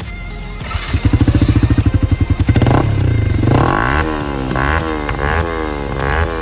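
Yamaha R15 V4 single-cylinder engine revved through an aftermarket Akrapovic R1M-style silencer on a bend pipe: a fast, loud pulsing burble about a second in, then a run of quick throttle blips, the pitch rising and falling about every 0.6 s.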